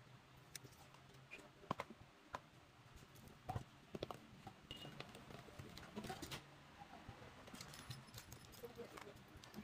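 Faint, irregular clicks and taps of small plastic model-kit parts being handled: Mini 4WD rubber tyres and plastic wheels picked up and fitted together by hand.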